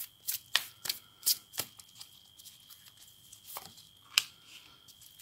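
A deck of tarot cards being shuffled by hand: a run of short card slaps about three a second for the first second and a half. This is followed by a few sparse taps, the sharpest about four seconds in as a card is laid down on a woven mat.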